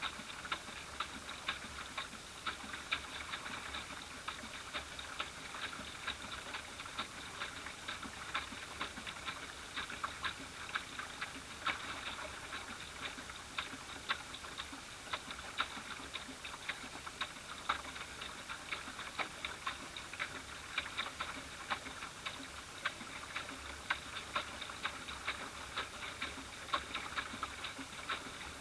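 Small ripples lapping against a plastic boat hull, making a steady run of light, irregular ticks and clicks, several a second.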